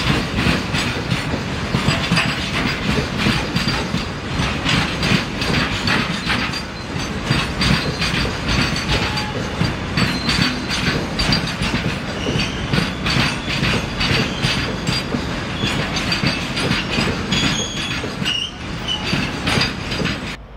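Loaded container wagons of a freight train rolling past close by, their wheels clattering in a steady clickety-clack over rail joints, with a few brief high squeals from wheel flanges on the curve.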